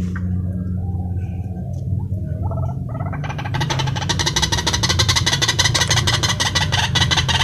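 White-breasted waterhens calling: a few faint calls, then about three seconds in a loud, fast run of repeated clucking notes, over a steady low hum.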